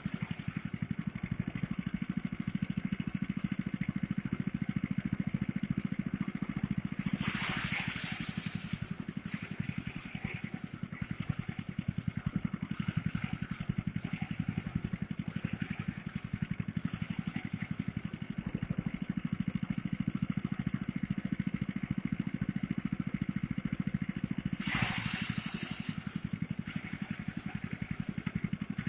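Small engine of a motorised rice thresher running steadily. Twice, a brief burst of hissing noise rises above it.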